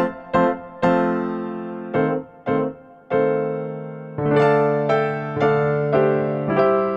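Background music: a piano-like keyboard playing a gentle run of single struck notes, each ringing and fading.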